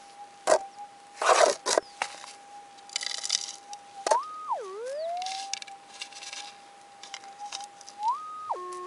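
Minelab metal detector's steady threshold hum, which twice jumps up in pitch and then dips low before settling back as a scoop of dirt is passed over the coil: the detector signalling a gold nugget in the scoop. Gravel rattles and scrapes in the scoop, loudest about a second in.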